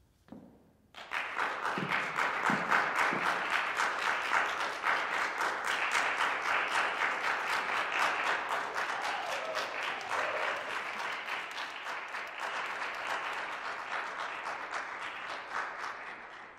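Audience applauding, starting about a second in and easing off slightly toward the end.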